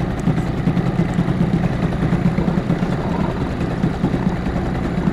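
Outboard motor of an inflatable boat running at a steady, even speed while trolling, with water and air noise over it.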